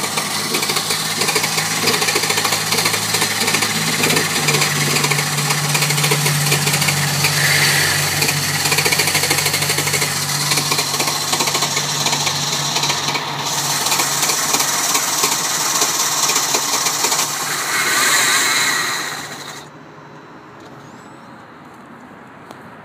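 Mercedes E320 W211's 3.2-litre V6 turning over on the starter with a fast, even pulsing, for nearly twenty seconds without catching, then stopping suddenly: a crank-but-no-start.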